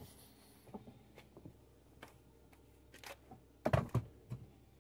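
Handling noises of a battery charger being plugged in: scattered light clicks and taps, then a louder cluster of knocks and rattles a little over three and a half seconds in.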